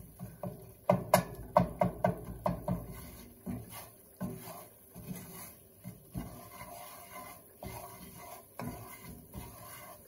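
Wooden spatula scraping and stirring a cornmeal-and-grease paste around a cast iron skillet while it browns for sawmill gravy. Quick strokes, about four a second, for the first few seconds, then slower, softer scrapes.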